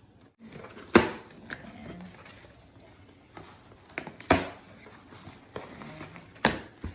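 Scissors snipping open a plastic shipping bag: three loud, sharp snips, about a second in, at about four seconds and near the end, with quieter handling clicks between.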